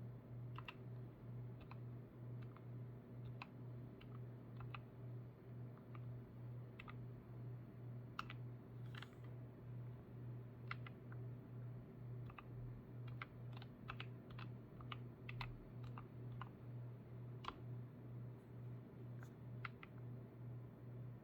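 Typing on a Dark Project KD87a mechanical keyboard with Gateron switches: irregular, separate key clacks, a few a second, over a low pulsing hum.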